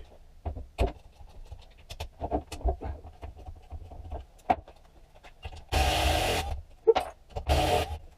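Metal engine parts knocking and clinking as a motorcycle engine is taken apart, then two short bursts of a power tool, each under a second, about six and seven and a half seconds in.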